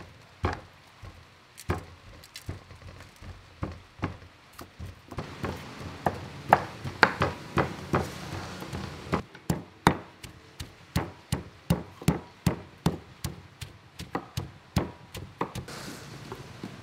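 Knife blades chopping vegetables on a thick wooden chopping board: a run of sharp, uneven knocks, about two to three a second, coming closer together in the second half.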